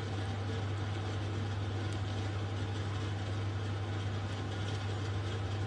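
A steady low hum with faint background noise, unchanging throughout.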